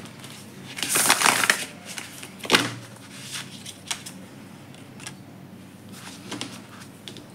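A deck of tarot cards being riffle-shuffled: a quick flutter of cards falling together about a second in, then a single sharp knock near the middle as the deck is squared on the table, followed by a few faint clicks of cards being handled.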